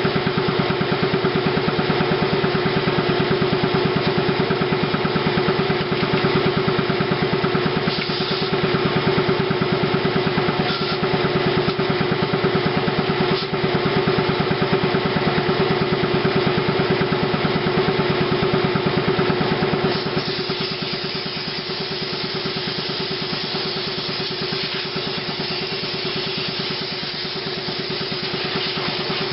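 Air compressor running steadily with a fast even pulsing as it builds up pressure. It gets somewhat quieter about twenty seconds in.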